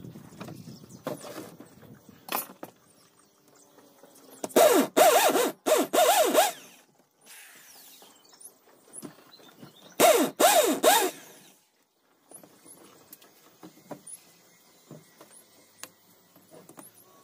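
Corded electric drill boring into a wooden door frame in two bursts of a couple of seconds each, about five and ten seconds in, its whine wavering in pitch. Small knocks and clicks of handling the wood and tools in between.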